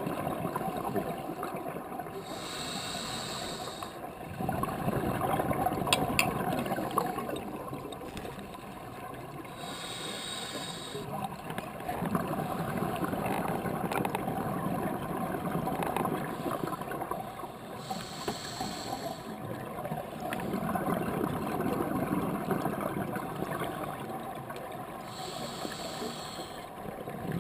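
Scuba diver breathing through a regulator, heard through a dive housing: four inhalations, each a high hiss of about a second and a half, roughly every eight seconds, each followed by the low bubbling rush of the exhaled air.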